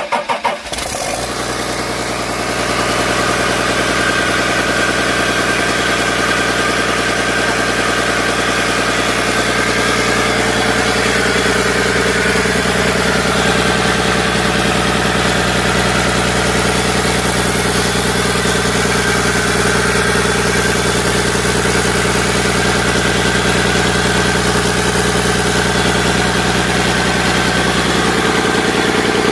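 A freshly overhauled Komatsu PC200 excavator's turbocharged diesel engine, on its first test run: it catches from cranking about a second in, picks up speed and then runs steadily.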